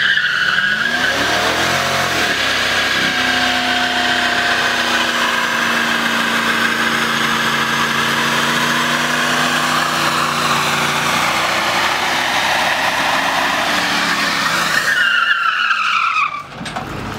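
A car spinning its tyres: loud, continuous tyre squeal over an engine held at steady high revs. Near the end the squeal falls in pitch and the sound drops away suddenly.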